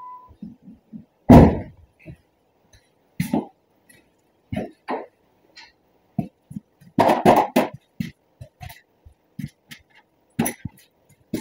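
The Dodge Ram's steady electronic warning chime cuts off just after the start. About a second in, the truck's door shuts with a loud thump. Scattered knocks and footsteps follow, with a cluster of louder knocks around seven seconds in.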